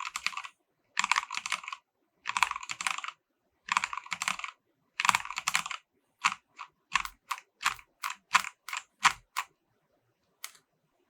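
Typing on an EVGA Z15 mechanical keyboard with Kailh Speed Silver linear switches: five short runs of rapid keystrokes, then single key presses at about three a second, and one last press near the end.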